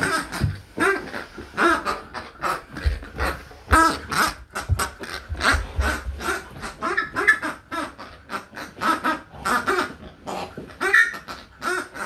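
A plush pig dog toy squeaking over and over, several quick squeaks a second, as a Vizsla bites and chews it.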